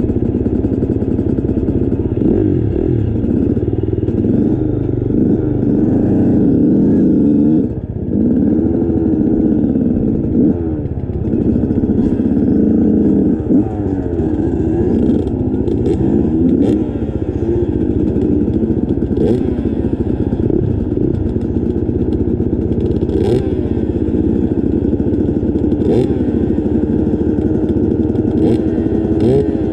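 Motorcycle engine running under load on a trail ride, its revs rising and falling every second or two, with a few sharp clacks in the second half.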